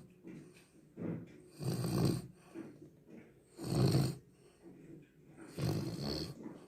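A dog snoring in its sleep, one snoring breath about every two seconds.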